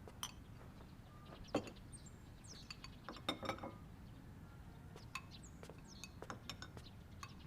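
Light clinks and taps of dishes and cutlery, a scattering of short knocks as plates and utensils are set down on a table.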